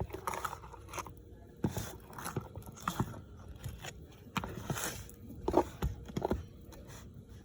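Thick cake batter being stirred in a bowl: irregular scrapes and sticky, squelching strokes of the utensil through the stiff mix.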